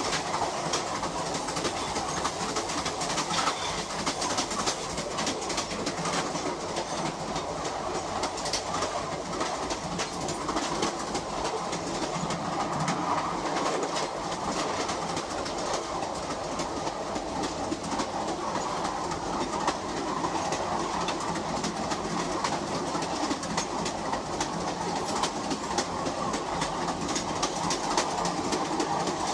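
Steady rumbling, rattling noise with a dense run of clicks throughout and no pauses.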